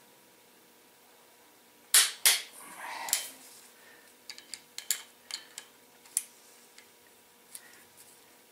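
Sharp metal clicks and clinks from a socket on a long extension and a torque wrench being worked on ARP connecting rod bolts. Two loud clicks come about two seconds in, followed by a short scrape, then a run of smaller clicks.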